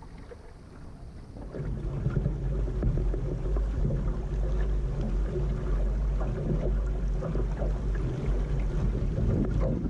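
Water splashing and rushing along a Laser sailing dinghy's hull, mixed with wind rumbling on the microphone. It swells about a second and a half in and drops away at the end.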